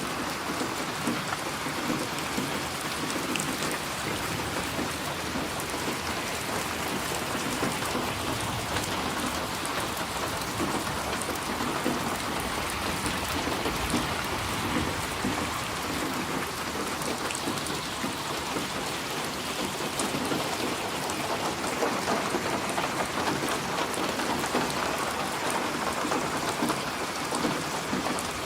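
Steady rain falling, an even patter of many drops with no break.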